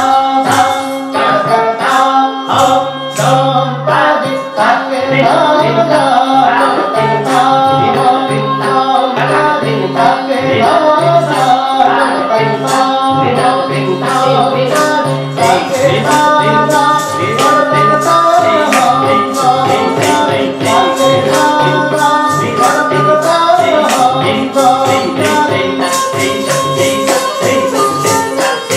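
Odissi dance music for the Sthai in Ektali: a steady drone and a melody line over continuous rhythmic percussion strokes with a jingling.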